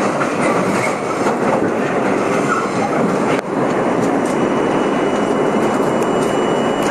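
Budd-built R32 subway car running through a tunnel, heard from inside the front car: a steady, loud noise of steel wheels on the rails. About halfway through, a thin, steady high tone sets in.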